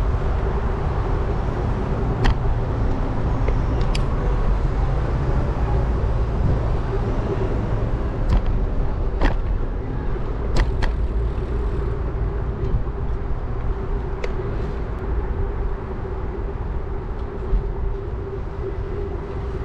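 Bicycle riding seen from a handlebar- or body-mounted action camera: a steady low rumble of wind on the microphone and rolling tyres, under a steady hum. Sharp clicks or knocks come now and then, about seven times and at uneven gaps.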